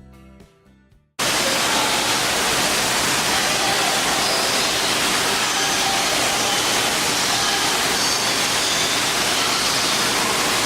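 Background music fades out in the first second. Then a waterfall's steady rush of falling water starts abruptly and holds loud and even.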